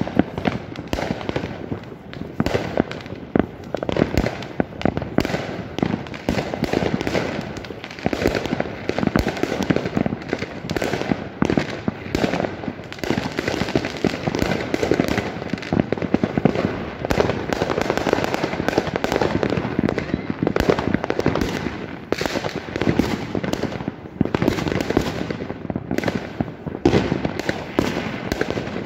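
Many fireworks going off at once: a dense, unbroken run of overlapping bangs and pops, some much louder than the rest.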